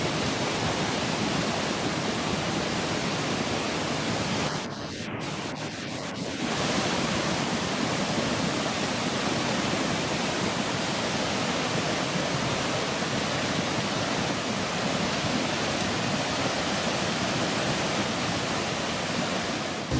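Steady rushing noise of flash floodwater surging through a town, dipping briefly about five seconds in.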